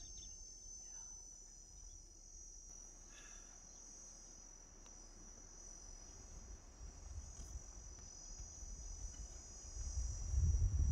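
A steady, high-pitched, even chorus of insects shrilling. A low rumble grows louder near the end.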